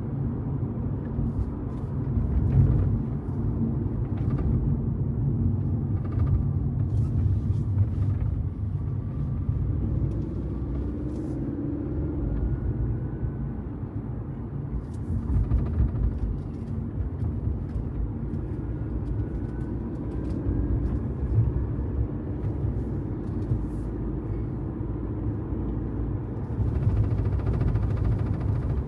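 Mercedes-Benz W206 C-Class on the move: a steady low rumble with short rattling clicks that come and go irregularly every few seconds, the unwanted rattle the owner is trying to capture.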